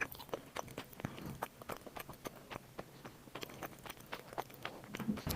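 Eating sounds: a run of small, irregular clicks and crunches, several a second, from someone chewing close to the microphone.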